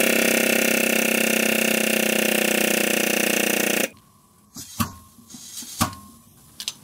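Powered shop press running with a steady hum for nearly four seconds as its ram pushes a crank pin into a crankshaft flywheel half, then cutting off. Afterwards come a few light metallic clicks as a feeler gauge is slipped in beside the connecting rod to check side clearance.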